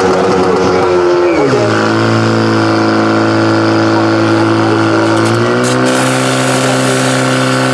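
Portable fire pump engine running hard, driving water into the attack hoses. Its pitch drops about a second and a half in, holds steady, then climbs again a little after five seconds.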